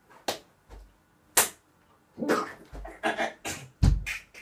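Two sharp slaps of a hand hitting the body, then a rapid run of strained grunts, panting breaths and scuffling as a man mock-wrestles his own arm.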